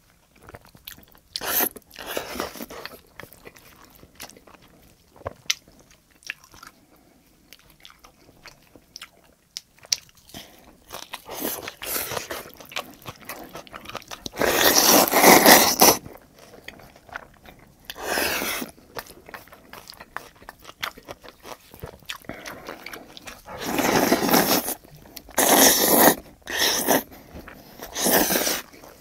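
A person eating close to the microphone, chewing and slurping tomato spaghetti noodles: small wet clicks throughout, with about five loud slurps of about a second each in the second half.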